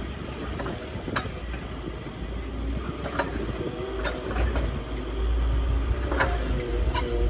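Excavator's diesel engine running steadily, with a handful of sharp, irregular metallic knocks rather than the rapid, even blows of the breaker hammering.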